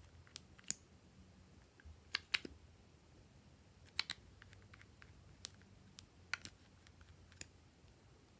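Scattered sharp clicks and taps of small hard plastic makeup bottles with bunny caps being handled, knocked together and uncapped, about ten clicks spread irregularly, over a faint low hum.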